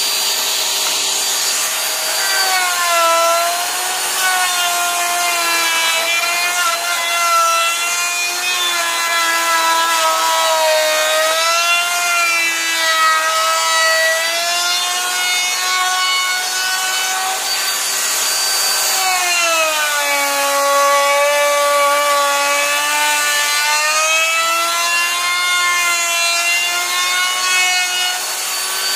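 Handheld router fitted with a roundover bit, routing the edges of holes in plywood: a steady motor whine over the hiss of cutting. The pitch wavers and sags whenever the bit takes the cut, most clearly a few seconds in and again past the middle.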